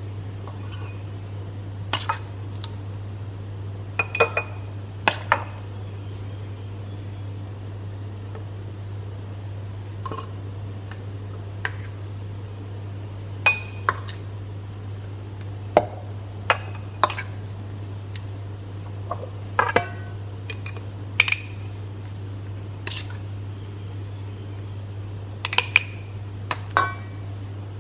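Kitchen utensils and glassware clinking and knocking now and then: a scattering of sharp clinks, some with a short ring. A steady low hum runs underneath.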